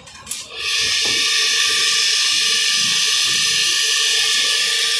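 Electric lassi-churning machine mounted on a steel pot of curd, its motor starting about half a second in and running steadily with a loud, high whir and a steady hum beneath.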